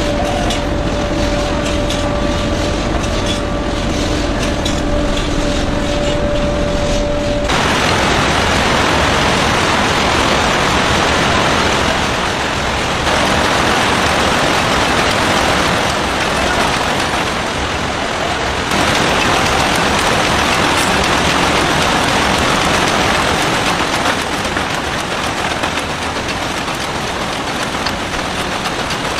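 Match factory machinery running. First a steady hum with rapid rattling, then, after an abrupt change about seven seconds in, a dense, even clatter of machines.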